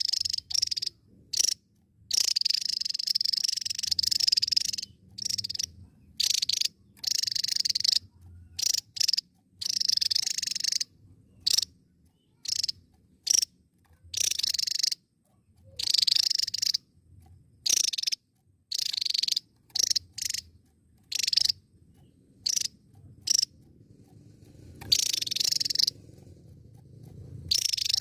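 Javan tesia singing: a run of high-pitched song phrases, some brief single notes and others lasting a second or more, separated by short pauses.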